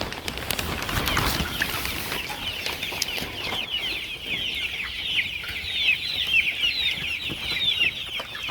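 A flock of young layer pullets peeping and chirping together, many short falling calls overlapping in a continuous chorus. There are some rustling knocks in the first second.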